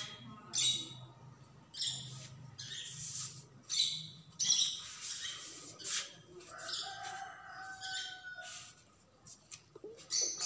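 Birds chirping and squawking in short high bursts, one every half second to second, with a longer held call about seven seconds in.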